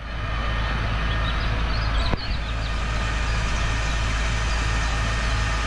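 Fire engine running steadily while it pumps water through its jets: a continuous low rumble under a steady hiss. A single sharp click about two seconds in.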